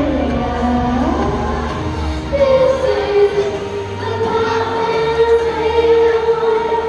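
A girl singing solo into a microphone over an instrumental accompaniment, her voice sliding between notes and then holding one long note from about two seconds in.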